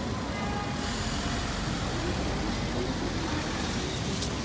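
Steady street noise of a vintage Lisbon tram running along the street on wet rails, mixed with traffic. A single sharp click comes near the end.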